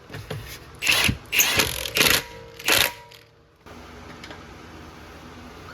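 Milwaukee M18 Fuel cordless impact wrench hammering in four short bursts, snugging wheel lug nuts on a low power setting.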